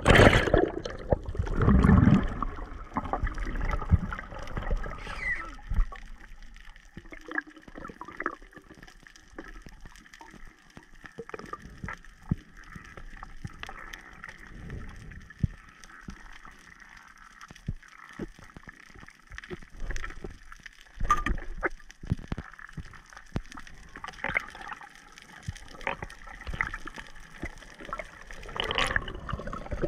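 Underwater sound through a diving camera: a loud rush of water and bubbles for the first two seconds or so, then a quieter stretch of scattered sharp clicks and crackles with water gurgling and sloshing.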